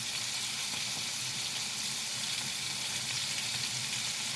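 Floured chicken pieces frying in a pan: a steady, even sizzle.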